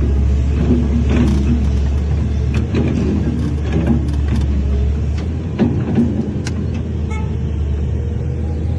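Diesel engine of heavy earthmoving machinery running with a steady deep drone, with scattered clanks and knocks over it.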